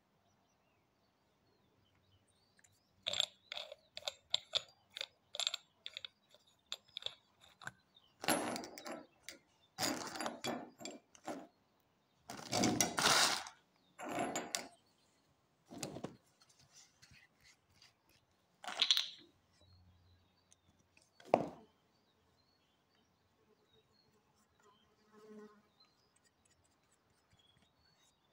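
Hands handling brass and plastic plumbing fittings: a quick run of small clicks, then several short noisy handling sounds, and two sharper knocks later on.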